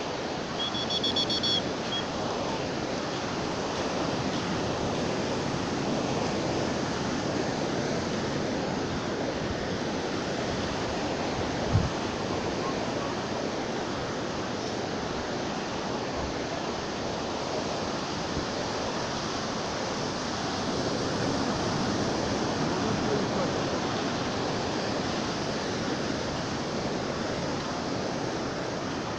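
Sea surf washing steadily onto a sandy beach, with wind buffeting the microphone. A short high-pitched chirp sounds about a second in, and a single sharp click comes a little before the middle.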